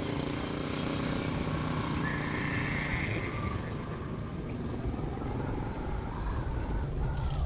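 Small motorcycle engine running steadily as it is ridden along.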